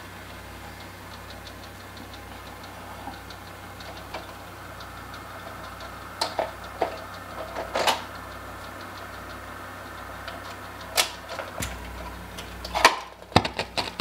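1950s RCA Victor console record changer humming steadily with faint, fast ticking. About six to eight seconds in, and again near the end, there are sharp clicks and knocks as records are stacked on the spindle and the changer's overarm is set down on them.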